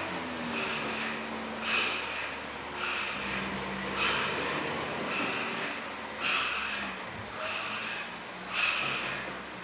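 Truck engine running low and steady, with a series of short hissing puffs roughly once a second.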